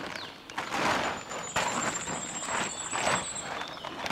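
Plastic tarp crinkling and rustling in irregular bursts as it is gathered up and folded by hand.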